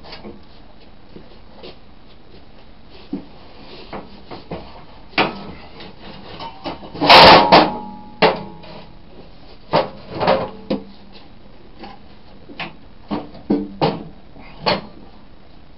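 Hammer knocking a wooden block into place under a generator's alternator to wedge it up: scattered sharp knocks, the loudest a quick cluster about seven seconds in, with clatter of metal and wood being handled between them.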